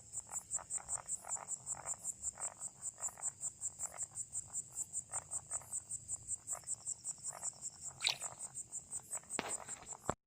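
Crickets chirping steadily in a high, even pulse of about five chirps a second, over frogs calling in short, irregular croaks. About eight seconds in comes a brief, louder rising squeak, and the sound cuts off abruptly just before the end.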